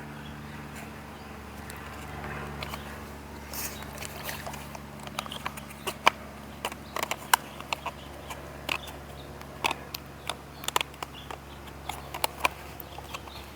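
Hands forcing a new rubber foot pad onto a Kreepy Krauly Kruiser pool cleaner: irregular clicks, taps and scraping of rubber and plastic parts, over a steady low hum.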